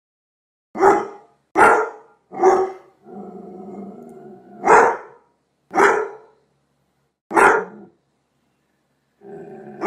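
German Shepherd barking: three quick barks, a growl lasting about a second and a half, then three more single barks about a second or more apart. Near the end another short growl runs into a bark.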